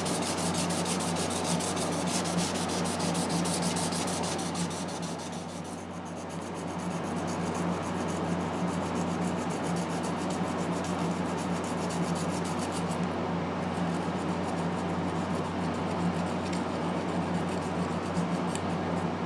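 Sandpaper rubbing back and forth over a plastic model-kit part, smoothing out deep scratches left after paint stripping, easing off briefly about five seconds in. A steady low hum runs underneath.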